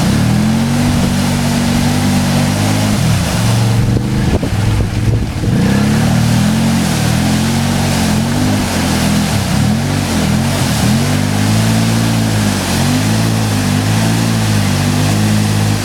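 ATV engine revving hard, its pitch swinging up and down again and again as it churns through a deep water-filled mud hole, with a brief let-up about four to five seconds in.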